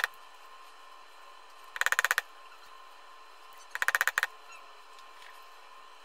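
A hammer striking soldered jump rings on a steel anvil, flattening them into ovals: two short runs of rapid ringing metal taps, about two seconds apart.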